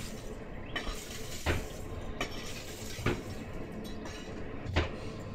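A swordsmith's charcoal forge being worked: sharp clacks at an even pace, about every one and a half seconds, over a steady rushing noise.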